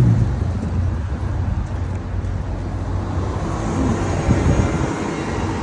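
Street traffic with a double-decker bus's diesel engine running close by: a steady low engine hum under the noise of passing road traffic.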